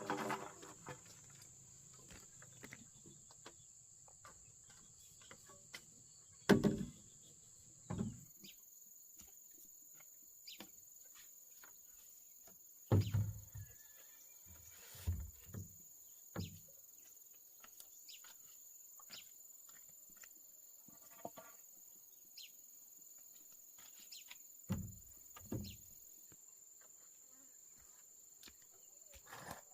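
Insects droning steadily at a high pitch, with a handful of scattered knocks and thuds, the loudest about six seconds in and again around thirteen seconds.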